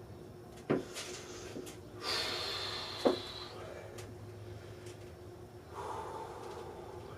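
A weightlifter breathing hard in sharp, hissing breaths, with two sharp knocks of gym equipment: one a bit under a second in and a louder one about three seconds in.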